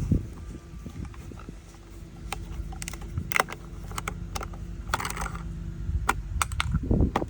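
Light metallic clinks, clicks and scrapes of hand tools and parts being handled during an oil change, over a low steady hum, with a heavier knock at the start and a flurry of handling noise near the end.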